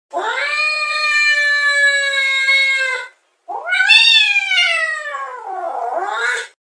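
A domestic cat giving two long, drawn-out yowls. The first is held at a steady pitch for about three seconds. After a short break comes a second, which rises and then slides down, turning upward again at its end.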